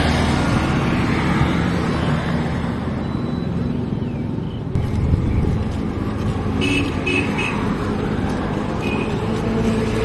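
Steady road traffic noise, with vehicles running close by. A few short high chirps come about seven seconds in.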